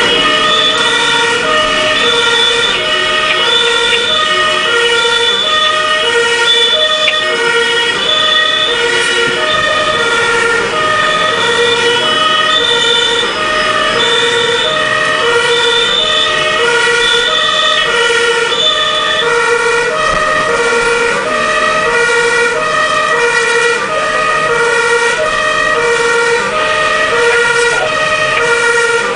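German two-tone fire-engine siren (Martinshorn) on an emergency run, switching back and forth between a high and a low pitch about every three-quarters of a second. It is heard from inside the fire engine's cab, over the truck's running engine.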